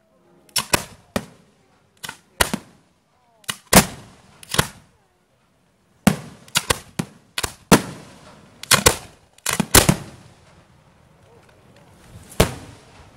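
Aerial fireworks bursting overhead in a string of sharp, irregular bangs. They come closest together, several a second, from about six to ten seconds in, and a single bang follows near the end.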